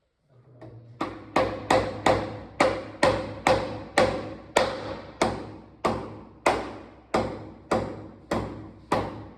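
Hammer driving a concrete nail into a masonry wall: about twenty steady blows, two to three a second, each ringing briefly.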